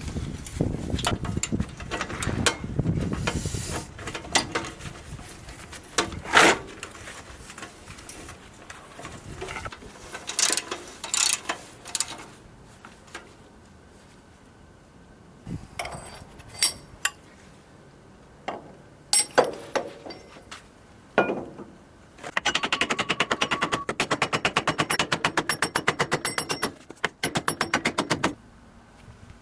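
Metal parts and hand tools clinking and knocking while a manure spreader's gearbox is put back together. About two-thirds of the way through comes some six seconds of fast, even metallic clicking that stops suddenly.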